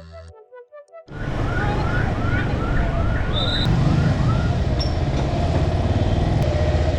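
Loud road-traffic noise with a heavy engine rumble, starting about a second in. A quick run of about seven rising-and-falling siren-like chirps comes about two seconds in.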